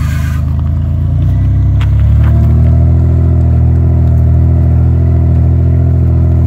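Toyota 4Runner's engine revving under heavy load as the truck crawls up a rock ledge: the revs climb over the first couple of seconds, then hold steady and loud.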